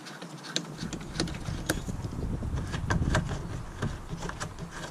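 Sharp plastic clicks and light taps as the screws of the X350 Jaguar XJ's plastic engine-bay cover are undone and the cover is handled, over a low rumble.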